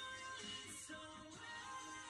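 Quiet background music playing.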